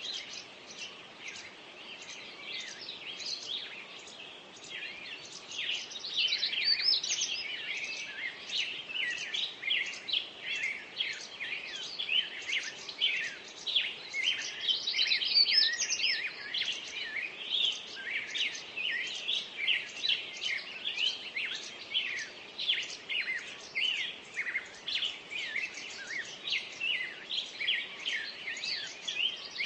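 Dawn chorus of many songbirds: dense, overlapping rapid chirps and trills, swelling louder a few seconds in.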